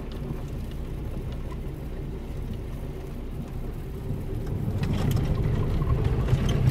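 Car engine and road noise heard from inside the cabin of a moving car, a steady low hum that grows louder about four and a half seconds in.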